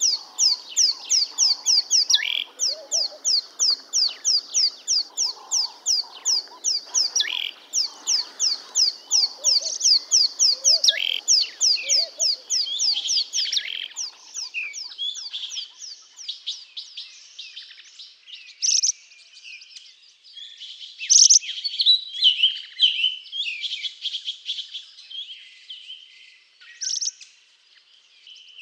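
Small songbirds chirping. First a fast, even run of short high chirps, about three a second, then a varied twittering song with a few louder sharp notes.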